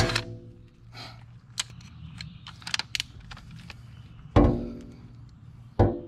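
Cordless drill with a step bit, enlarging a hole in the UTV's cargo bed wall. The drill winds down at the start, and light clicks and taps of the bit on the metal follow. It then spins in short trigger bursts that each fade off, one a little past four seconds in and another near the end.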